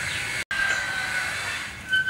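Rooster crowing: long drawn-out calls, broken by a brief dropout about half a second in.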